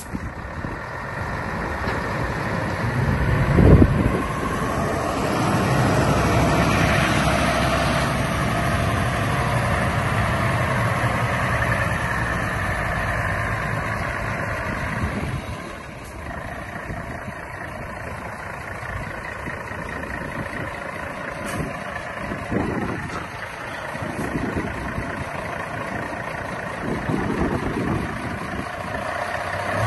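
A 1996 Mercedes-Benz 1824 dump truck's six-cylinder diesel engine runs as the truck drives by. The engine grows louder as the truck comes near, then settles to a lower, steady run in the second half. A short low thump about four seconds in is the loudest moment.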